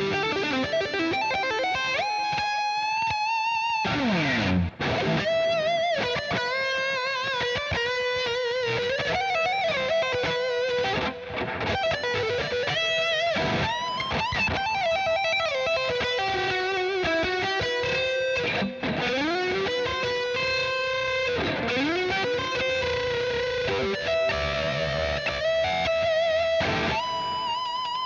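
Cort X700 Duality II electric guitar, with Fishman Fluence humbuckers, played through an amp as a melodic lead line: held notes with wide vibrato, string bends and slides between phrases.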